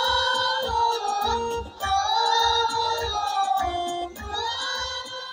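Children's choir singing a song in unison through stage microphones, holding long notes, with a steady low beat underneath. The singing eases off near the end.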